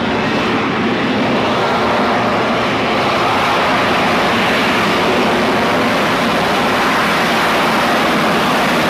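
F-35B Lightning II jet approaching a ship's flight deck for a vertical landing: a loud, steady jet roar that builds slightly as the aircraft closes in.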